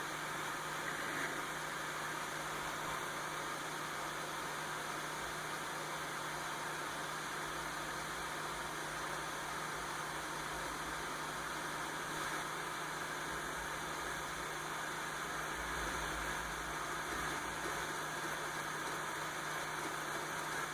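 Desktop PC's cooling fans running steadily as the machine boots: an even whir with a constant low hum underneath.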